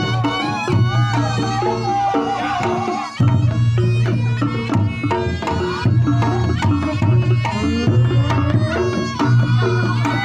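Reog Ponorogo gamelan playing: kendang drum strokes drive a steady beat under a wavering slompret melody, with repeated gong and kenong tones.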